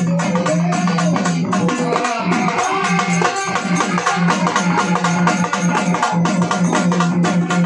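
Marathi folk music: fast, even strokes on a dimdi frame drum over a held low tone, with a wavering melody line above.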